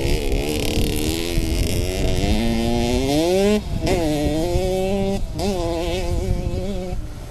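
Dirt bike engine revving as it is ridden across a grass field. The pitch climbs and falls through the gears, cuts out briefly about three and a half seconds in, then revs up and down again and settles into a steadier note near the end.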